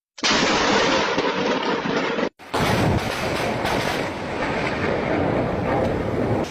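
Steady roar of a heavy thunderstorm, rain and wind, in two clips cut together: it drops out briefly at the start and again about two seconds in.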